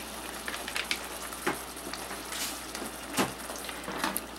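Wooden spoon stirring ground beef in simmering tomato sauce in a metal pot: a steady hiss from the sauce with a few sharp taps of the spoon against the pot.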